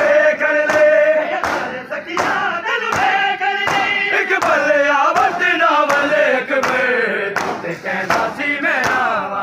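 A crowd of men singing a mourning chant in unison while striking their bare chests with their hands in time, a sharp slap about every three-quarters of a second (matam beating to a noha).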